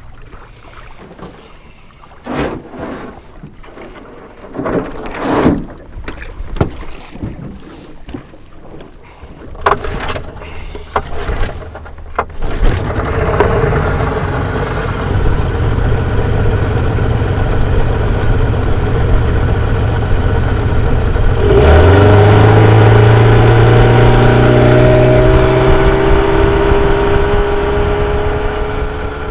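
Scattered knocks and clunks in a small aluminium boat, then from about twelve seconds in a small tiller outboard motor running with a steady rush of noise as the boat gets under way. About twenty-two seconds in the engine is throttled up and its pitch rises and holds.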